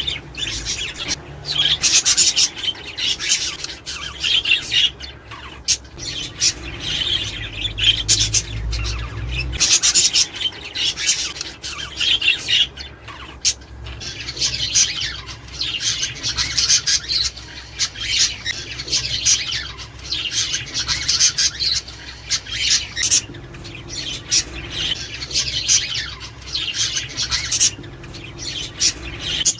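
A flock of budgerigars chattering: a continuous jumble of squawks, chirps and warbles from several birds at once.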